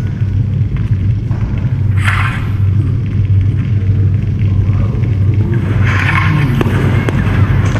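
Battle sound effects played over the panorama rotunda's loudspeakers: a loud, steady, deep bass rumble like distant cannon fire and a moving army, with two short bursts of higher noise, one about two seconds in and one near six seconds.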